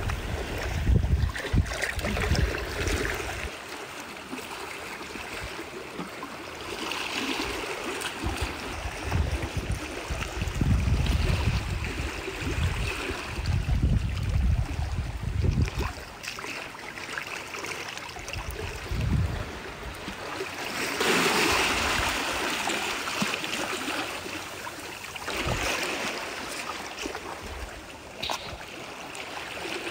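Seawater washing and trickling among rocks in a tide pool, with gusts of wind rumbling on the microphone now and then and a louder rush of water a little after twenty seconds in.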